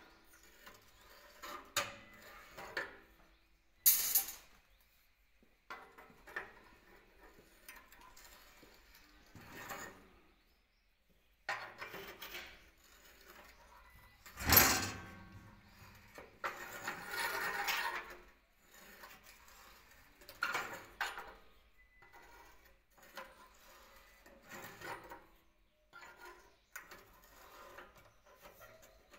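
JXN hand-lever rebar bender working steel rebar on a steel worktable: irregular metal knocks, clinks and scraping as bars are fed in, levered round and pulled out. Two sharp clanks stand out, about four seconds in and near the middle, followed by a stretch of scraping.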